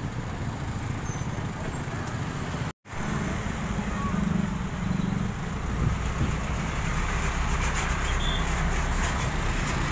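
Street traffic: motor scooters, cars and trucks passing close by on a town road, with engines running and tyres on asphalt. The sound drops out for a moment about three seconds in, and from about halfway a heavier low engine rumble builds as a box truck passes close.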